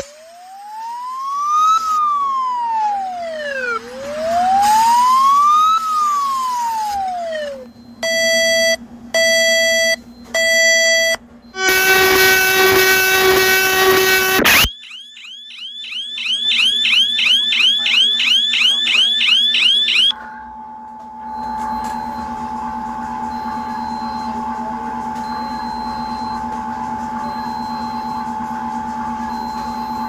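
A sequence of mock emergency-alert alarm sounds: a siren wails slowly up and down twice, then three short beeps, a harsh multi-tone blast, a fast warbling whoop, and finally a long steady single tone over a low hum.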